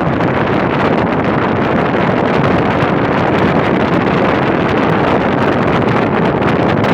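Window air conditioner running, its fan blowing a steady rush of air across the microphone.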